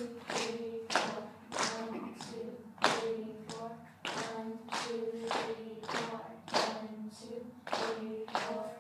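A class of choir students patting their laps and snapping their fingers together in a slow, steady rhythm, about one and a half strokes a second, with their voices singing along in unison underneath.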